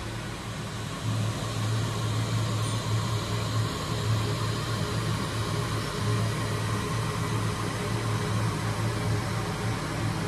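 Steady low mechanical hum of a running machine, such as a fan or compressor. It steps up in loudness about a second in.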